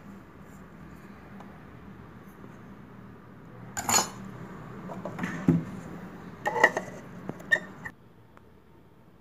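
Metal clinks and knocks of a stainless-steel mixer-grinder jar and its lid being handled and fitted, about half a dozen sharp clinks in the second half.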